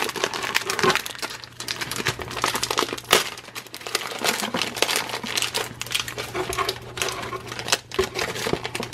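Plastic snack bag crinkling and crackling as hands pull it open and crumple the wrapper, with dense crackles throughout.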